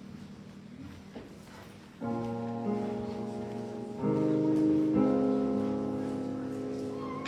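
Church keyboard playing slow, sustained chords. A soft held chord fades out, then louder chords come in about two seconds in and change again near four and five seconds.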